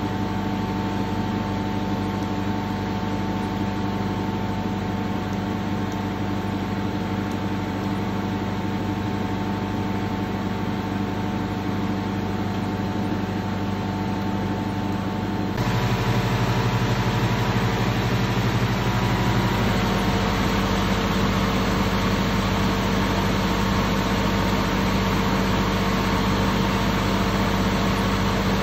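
A machine running steadily, a continuous drone made of several held tones. About fifteen seconds in it becomes a little louder and shifts in tone.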